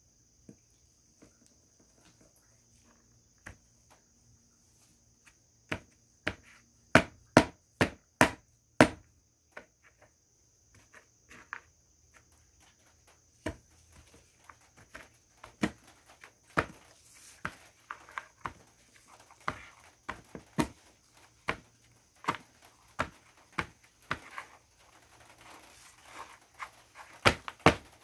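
Colored naphthalene mothballs crushed under the bottom of a small jar pressed by a gloved hand: sharp cracks and crunches. They are sparse at first, then come as a quick run of loud cracks about seven to nine seconds in, then as frequent smaller crunches through the second half.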